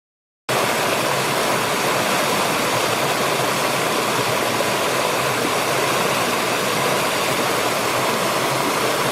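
Waterfall's steady rushing water, cutting in abruptly about half a second in.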